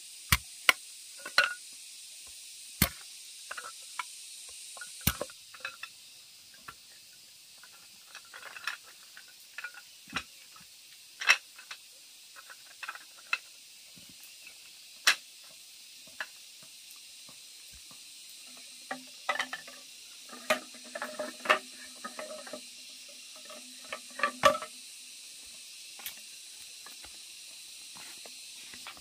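Scattered sharp clicks and knocks of objects being handled over a faint steady hiss, with a busier run of clattering about two-thirds of the way through.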